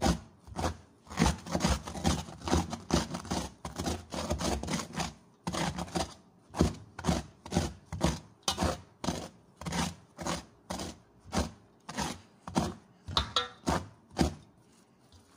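Saluyot (jute mallow, molokhia) leaves being chopped in a metal bowl with a two-handled knife, in steady strokes of about two a second that stop shortly before the end.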